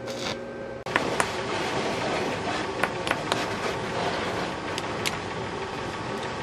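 A stick-welding arc crackles briefly over a steady electric hum, and the sound cuts off less than a second in. Then steel parts and pliers clink sharply several times on a concrete floor over a steady noisy background.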